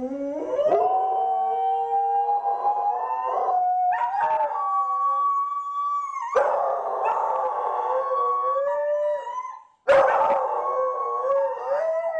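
Two Belgian Tervuren dogs howling together in long, drawn-out notes that rise at first and overlap. The howling breaks off for a moment near the end, then starts again. It is separation howling: the dogs have been left alone in the house by their owner.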